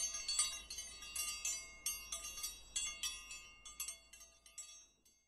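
A sound effect of bright, high chimes, like a wind chime, struck in a quick cascade and fading out near the end. It is the notification-bell jingle that goes with a subscribe-button animation.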